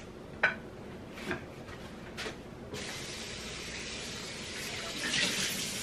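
A few light knocks as a glass baking dish is handled, then water running steadily into a kitchen sink as the dish is emptied and rinsed, growing a little louder near the end.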